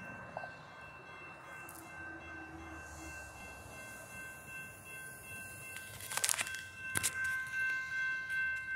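Railroad crossing warning bells ringing steadily while the crossing gates come down, signalling an approaching train. A couple of sharp knocks sound about six and seven seconds in.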